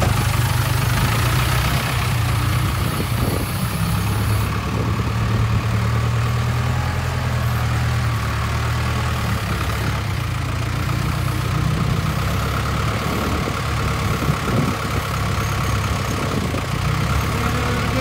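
Case 580K backhoe loader's diesel engine idling steadily.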